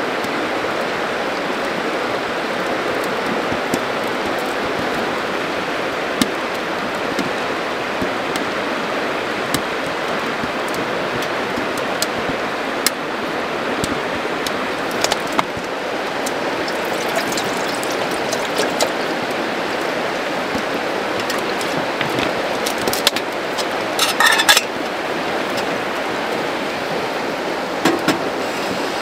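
Steady rushing of a flowing river, with a wood fire in a glass-fronted stove giving off sharp crackles now and then and a quick cluster of crackles near the end.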